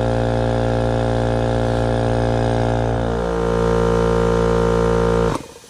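Husky 8-gallon oil-free air compressor running steadily as it fills its tank, its tone changing about three seconds in. It cuts off abruptly near the end as the tank reaches full pressure.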